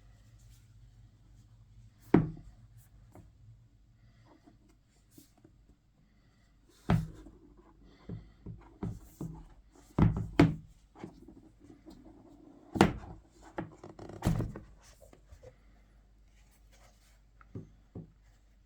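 Unboxing handling: scattered knocks and thunks as an Apple Magic Keyboard and its packaging are handled, with quiet rubbing between. The sharpest knocks come about 2, 7, 10 and 13 seconds in, with a small cluster in the middle.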